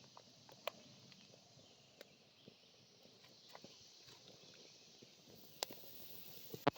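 Campfire crackling quietly: a few sharp, isolated pops over a soft hiss.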